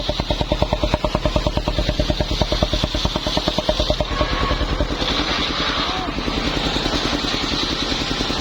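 Small engine running with a steady beat of about ten pulses a second, driving a homemade circular saw rig.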